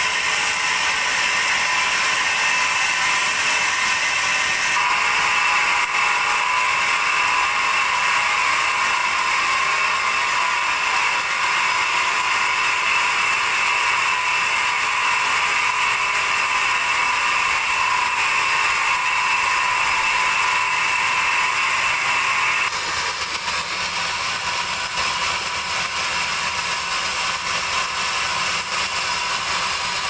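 Band sawmill running, its blade sawing through a large teak log with a loud, steady sound. About 23 seconds in it steps down to a slightly quieter, duller sound.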